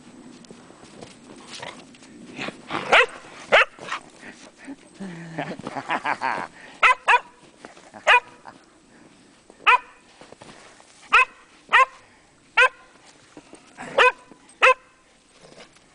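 Welsh Springer Spaniel barking: about a dozen short, sharp barks, starting about three seconds in and coming roughly once a second in the second half.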